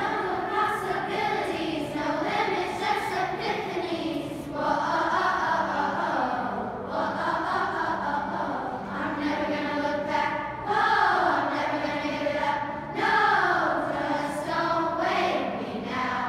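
Children's choir singing, in phrases of a few seconds with short breaks between them.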